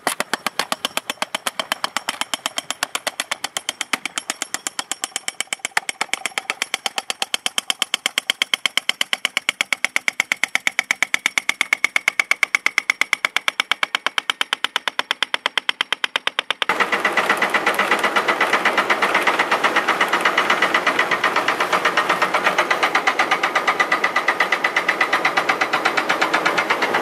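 Hammerhead 8-inch pneumatic impactor hammering in a rapid, even rhythm as it bursts the old PVC sewer pipe. About two-thirds of the way through, the sound changes abruptly to a denser, steadier, hissier hammering.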